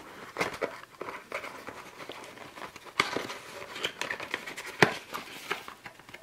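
Old cardboard game box handled and opened by hand: cardboard rubbing and sliding, with scattered light taps and clicks and one sharper knock a little before five seconds.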